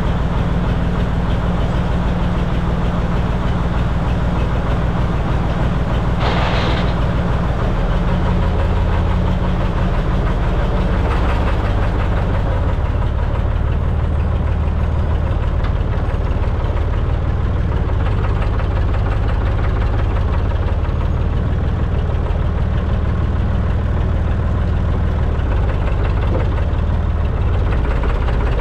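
Massey Ferguson 135 tractor engine running steadily as the tractor is driven, its pitch shifting about eight seconds in. A brief hiss comes about six seconds in.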